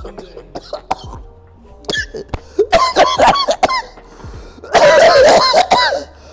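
A man coughing hard in two harsh fits, the second louder, after inhaling a dab of cannabis wax from a water-pipe dab rig: the hit has caught his throat.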